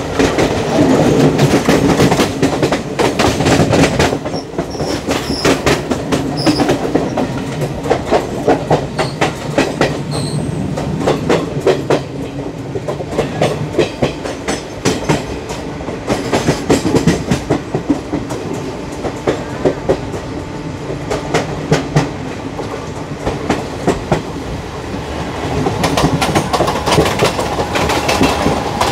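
ICF passenger coach running on the track: a rapid, irregular clickety-clack of wheels over rail joints and crossings, over a steady running rumble.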